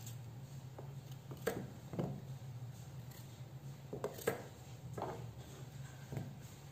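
Knife cutting zucchini into chunks over a wooden cutting board: a handful of irregular soft knocks and clicks, over a steady low hum.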